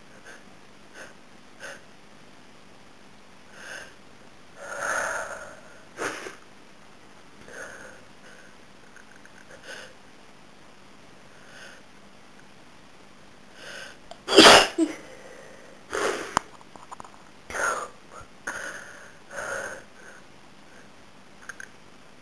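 A woman with a head cold sniffling and breathing in sharply, then sneezing several times. The loudest sneeze comes about two-thirds of the way in, with a few more sneezes close after it.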